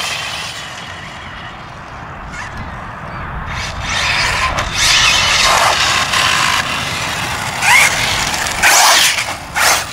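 Radio-controlled car driving on asphalt: motor and tyre noise, faint at first, then louder from about three and a half seconds in as the car comes back toward the listener, in short surges of throttle with a brief rising whine near the end.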